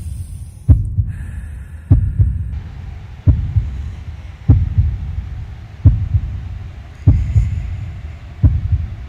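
Slow heartbeat: deep low thumps, some with a quick second beat, coming about every 1.3 seconds.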